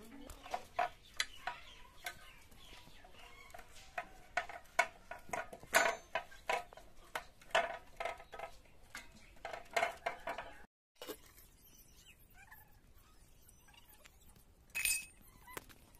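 Chickens clucking in short, irregular calls, with a brief cut about two-thirds of the way through, after which only a few faint calls are heard.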